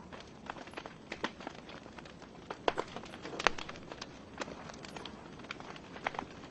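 Wood fire burning in a fireplace: logs crackling and popping over a steady hiss, with sharp pops about two and a half and three and a half seconds in.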